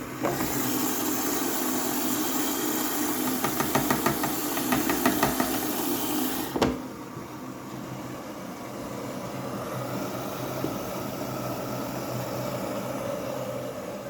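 Washing machine running: a loud rushing hiss over a steady hum, with rapid rattling in the middle. It cuts off sharply with a click about six and a half seconds in, leaving a quieter steady hum.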